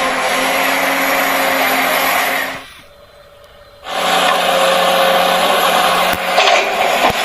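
Small electric motors of a radio-controlled construction model whirring steadily. They stop for about a second, a little past the middle, then start again, with a couple of light clicks near the end.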